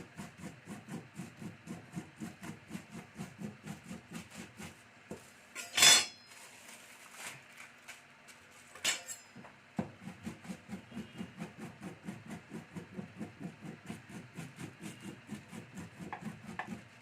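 Molokhia (jute mallow) leaves being chopped with a makhrata, a two-handled rocking mezzaluna chopper, giving a steady knocking of about four strokes a second. The chopping stops for a few seconds in the middle, broken by two louder clatters, then starts again.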